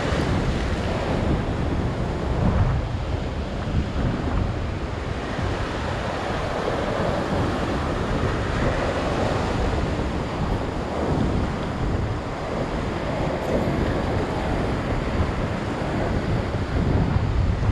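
Ocean waves breaking and foaming against a sea-rock ledge in a steady rush of water noise, with wind on the microphone.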